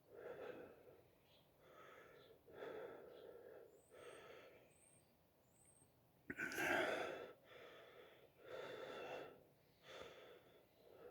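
A man's heavy, wheezy breathing in rapid breaths about a second or so apart, with a sudden louder gasp about six seconds in, in a bout of coughing.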